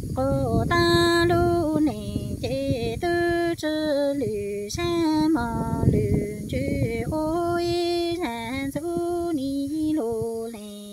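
A woman singing Hmong kwv txhiaj, the traditional sung poetry, unaccompanied. She holds long notes that step between a few pitches, with short breaks between phrases.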